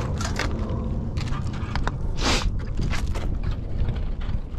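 Footsteps and shifting boots crunching and scraping on loose roof gravel, with a few sharp clicks and one louder scuff a little past two seconds in, over a steady low rumble.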